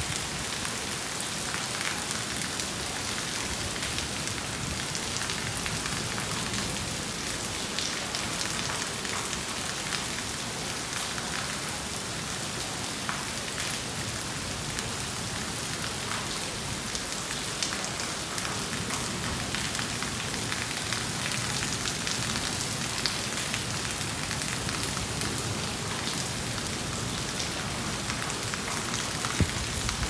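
Heavy rain falling steadily on leaves and a roof, with scattered drops ticking.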